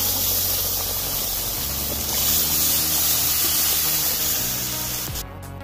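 Steady hissing, rushing noise with faint low tones beneath it. It cuts off sharply about five seconds in, and plucked-string music starts.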